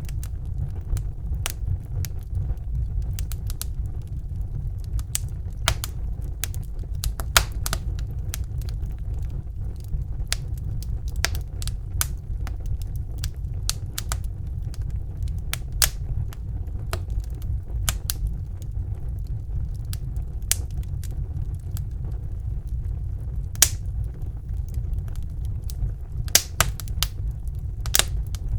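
Wood fire burning in a fireplace, crackling: a steady low rumble with frequent irregular sharp crackles and pops, a few of them louder snaps.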